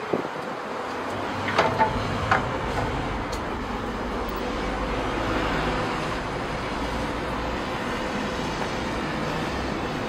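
Road traffic noise, a steady outdoor hum with a low rumble that swells toward the middle and eases off. A few sharp clicks come about two seconds in.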